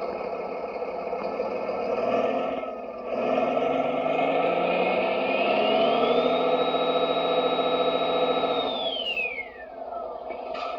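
Simulated MAN truck diesel engine from a Servonaut sound module, played through the RC dump truck's small speaker, revving up from a low note, holding high for a few seconds, then dropping back to idle near the end. A high whine rises and falls with it.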